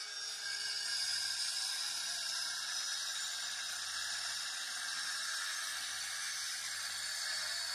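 A steady high-pitched hiss that holds at an even level, with no clear strokes or rhythm.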